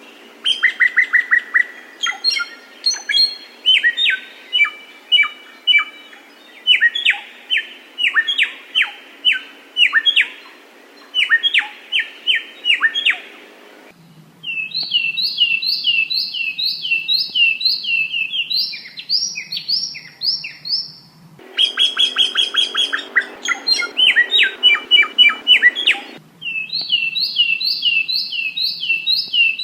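Spliced recordings of two small songbirds singing, used as a training (masteran) track. One gives rapid strings of sharp chirps and trills. The other repeats quick, high, rising-and-falling notes. The two recordings switch abruptly about 14, 21 and 26 seconds in.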